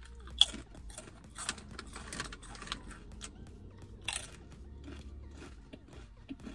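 Plain salted potato chips crunching as they are bitten and chewed: a string of sharp crunches, the loudest about half a second in and another about four seconds in.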